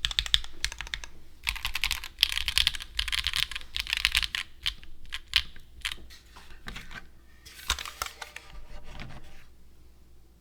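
Typing on a Dark Magnum Ergo-i custom mechanical keyboard with Gateron Deepping switches in an aluminum case. Fast runs of keystrokes for the first few seconds, then slower, scattered strokes that thin out and stop near the end.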